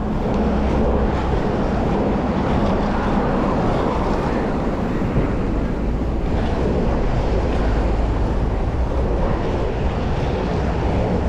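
Steady rush of wind on the microphone and inline skate wheels rolling over asphalt at speed, with city traffic around.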